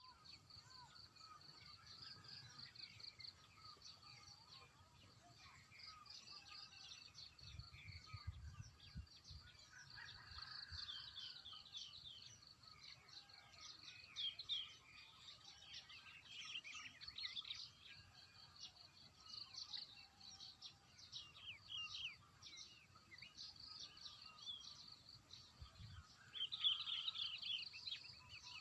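Faint birdsong: many short high chirps and calls from several birds over a steady high trill.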